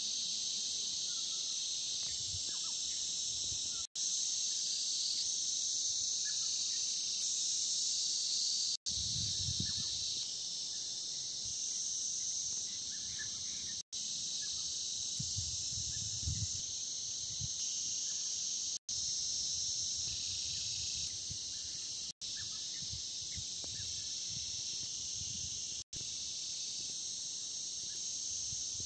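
Dense, steady chorus of insects shrilling high, with a few faint low rumbles. The chorus is broken by short moments of silence every few seconds.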